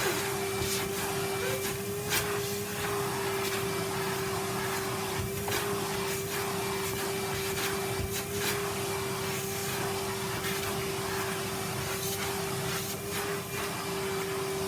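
Vacuum cleaner running steadily with a constant motor whine, its head pushed over the floor, with scattered light clicks and knocks as it picks up debris and bumps about.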